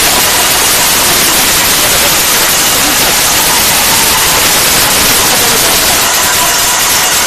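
A steady, loud hiss like static, the same level throughout.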